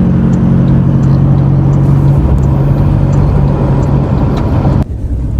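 Road vehicle driving at steady speed: an even engine hum with road and tyre noise. It cuts off abruptly near the end.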